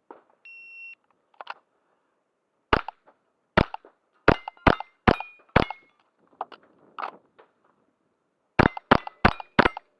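A shot timer's start beep, then rapid shots from an AR15-22 .22 rimfire rifle: a string of six, a pause of about three seconds, then four more. Several shots are followed by the short ring of a struck steel target.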